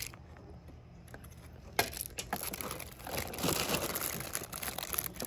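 Plastic bags and packaging crinkling and rustling as hands rummage through a cardboard box of party supplies. It starts about two seconds in, with a few light knocks of items shifting in the box.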